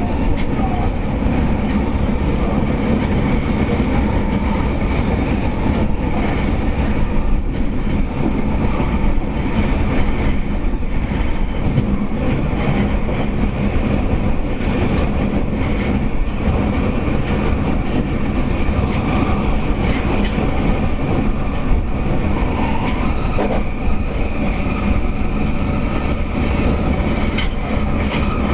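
Kita-Osaka Kyuko 9000 series subway train, with permanent-magnet synchronous motors and a VVVF inverter, running through a tunnel, heard from inside the car. It is a steady wheel-and-rail running noise with the car's air conditioning loud over it.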